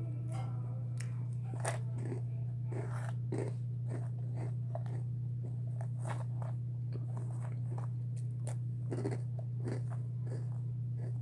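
A person chewing and crunching food close to the microphone, in short irregular crackly bites, over a steady low hum.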